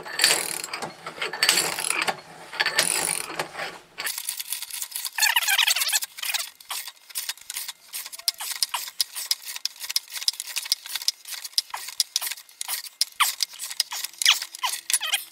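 Ratchet turning the forcing screw of a jaw puller, drawing a seized pulley off a small engine's crankshaft. It goes in short clicky strokes about every 0.7 s for the first four seconds, then in quick, lighter clicking for the rest.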